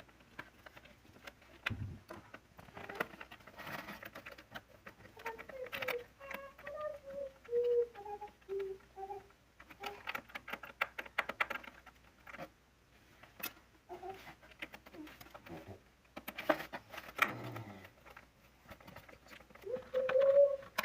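Scattered clicks and light knocks of hands and tools working on an electric heater's parts. A few short pitched calls sound in the middle, and a rising-then-falling call comes near the end.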